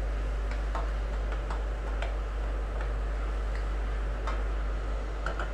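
Mushrooms frying in a pot: a steady sizzle with scattered light ticks and crackles.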